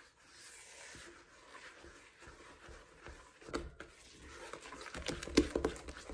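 A spatula mixing ground almonds into a thick frangipane batter in a plastic mixing bowl. It starts as soft scraping and rubbing, then from about halfway the spatula taps and knocks against the bowl in quick, uneven strokes.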